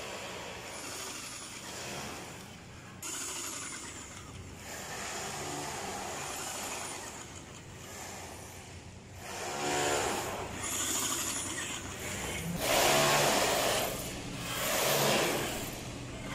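Road vehicles passing one after another, each swelling up and fading, the loudest about two-thirds of the way through, over a steady low hum.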